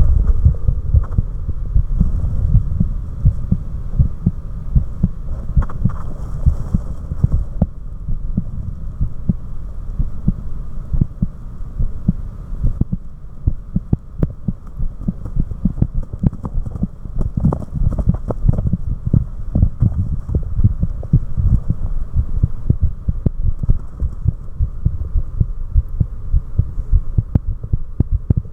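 A person's heartbeat recorded close at the chest: a continuous train of dull, low heart sounds over a steady low hum.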